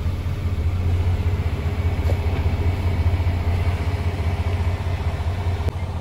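A heavy truck's diesel engine idling steadily, a low constant hum heard from inside the cab. A single switch click comes near the end as a cab light is switched.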